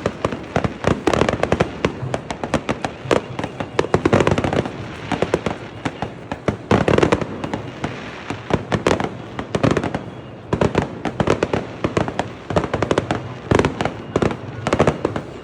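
Firecrackers and fireworks going off in a dense, continuous run of sharp bangs and cracks, with louder clusters every second or two.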